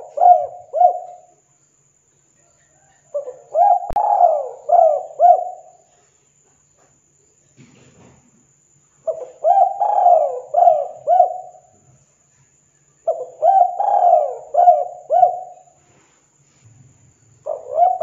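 Spotted dove (tekukur) cooing: repeated phrases of about five short, falling coos each, one phrase every four seconds or so, with a gap of several seconds in the middle. A sharp click sounds about four seconds in.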